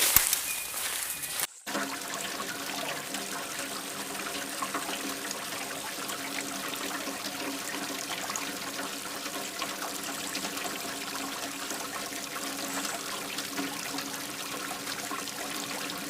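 Water running in a steady trickling flow. Before it, about a second and a half in, a short stretch of loud clicks cuts off abruptly.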